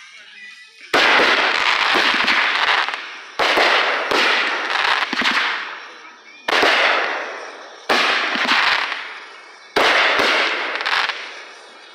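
Aerial fireworks bursting overhead in quick succession: about half a dozen sharp bangs, some in close pairs, each trailing off in a crackle that fades over a second or two.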